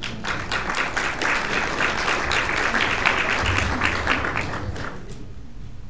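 Audience applauding, a dense patter of many hands clapping that builds within the first second and dies away about five seconds in.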